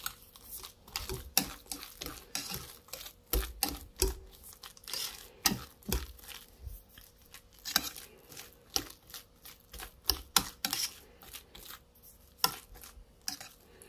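Wire whisk beating mashed potatoes in a glass dish: an irregular run of clicks and taps as the metal wires strike the glass.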